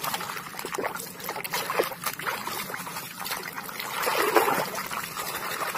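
Water splashing and sloshing in a plastic tub as a hand scrubs a toy pistol under the surface, with many small irregular splashes.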